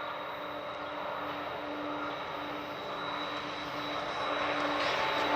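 Diesel locomotives hauling a freight train of tank cars, approaching: a steady engine drone with a hum, growing louder toward the end.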